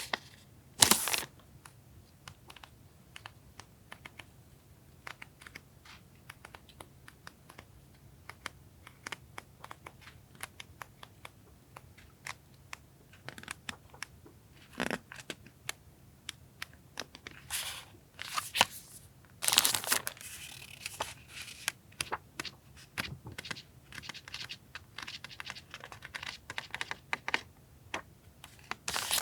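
Paper stationery being handled up close: crinkling, rustling and light taps and clicks, with short louder rustles about a second in and again about twenty seconds in.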